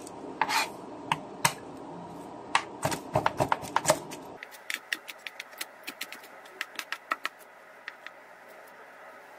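Kitchen knife chopping garlic on a bamboo cutting board: sharp knocks of the blade on the wood, spaced strikes at first, then a quick run of chops about halfway through that thins out near the end.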